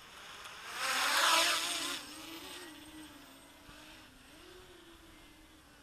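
XK X252 quadcopter's brushless motors and propellers buzzing as it takes off, with a loud rush about a second in. After that comes a fainter, steady buzz that wavers in pitch.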